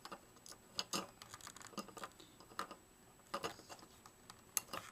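Faint, irregular clicks and taps of hands and cutters working on the trigger wires inside a dismantled Vivitar 2800 flash unit.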